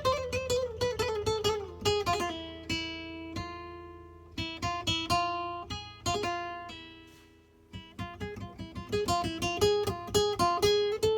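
Nylon-string electric classical guitar (PLAYTECH ECL200, solid cedar top) played solo through a Roland AC-40 acoustic amplifier: plucked single notes and chords ringing out. The notes fade nearly away about two-thirds of the way through, then a quicker run of notes follows.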